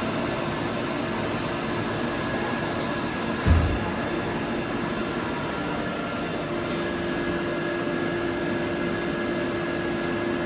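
Deckel Maho DMC 635 V vertical machining centre running with a steady mechanical hum and whine. A single thump comes about three and a half seconds in, after which the high hiss drops away and a steady tone carries on.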